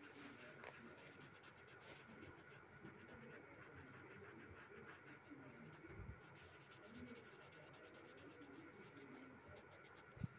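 Faint scratching of a pencil shading on paper, with a soft thump near the end.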